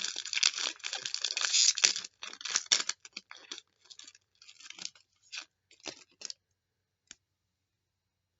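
A trading-card pack wrapper being torn open and crinkled, dense for the first two seconds. It then goes on in short, scattered rustles that stop a little after six seconds in, followed by one small click.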